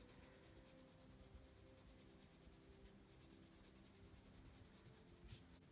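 Very faint, steady scratching of a coloured pencil on paper, laying down a light-pressure base coat.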